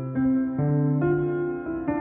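Background instrumental music: a slow, gentle melody of held notes, a new note about every half second.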